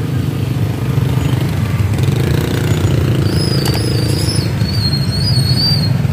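Many small motorcycles and scooters running together and pulling away across a level crossing as its barrier reopens, a dense steady low engine rumble. A sharp click about three and a half seconds in, and faint high wavering tones through the second half.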